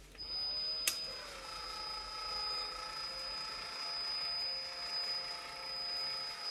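Cordless electric caulking gun's motor running steadily as it presses out a bead of silicone along the edge of an aquarium glass pane. It makes a steady whine with a high thin tone, rises in pitch as it starts up, and gives a sharp click about a second in.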